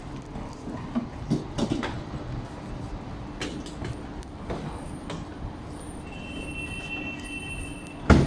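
Street background noise with scattered clicks and knocks, a thin high squeal lasting about a second around six seconds in, and one sharp loud knock near the end.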